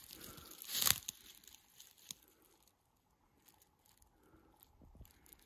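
Dry fallen leaves crunching and rustling underfoot: one loud crunch about a second in, then faint scattered rustles.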